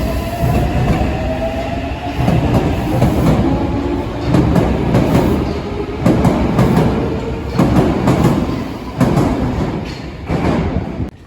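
Yokohama Blue Line 3000S subway train pulling out: its traction motors whine upward in pitch as it accelerates, over a heavy rumble. The wheels clack over rail joints about every one and a half to two seconds, the knocks coming a little faster as the train gathers speed, and the sound cuts off suddenly near the end.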